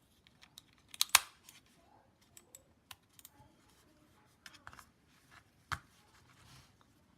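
Scattered small plastic clicks and taps as a wireless mouse is handled and set up, with a sharp close pair of clicks about a second in and another single click a little before six seconds.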